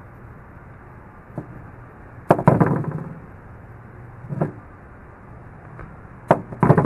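A small multitool's knife blade cutting through old, weathered string. There is a sharp snap about two seconds in, then a duller knock and a few handling clicks near the end, over a steady low hum.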